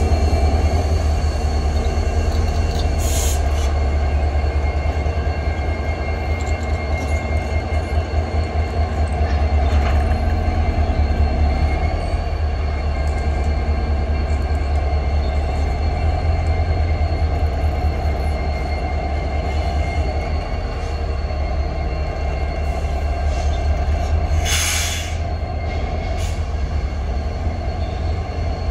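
Norfolk Southern diesel freight locomotives with a double-stack container train, giving a heavy, steady low rumble as the consist draws away, with faint high whining tones over it. A brief loud hiss comes near the end.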